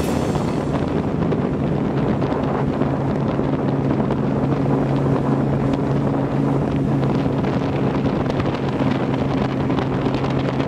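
Vehicle engine running at a steady speed, an even hum that holds its pitch throughout, with wind buffeting the microphone.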